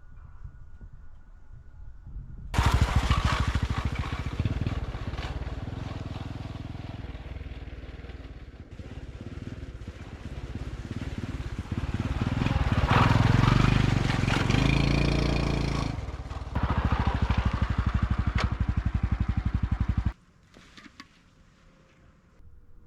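Honda Super Cub 110's single-cylinder four-stroke engine running. It comes in suddenly about two and a half seconds in, rises in revs and falls back around the middle, then runs steadily until it cuts off suddenly near the end.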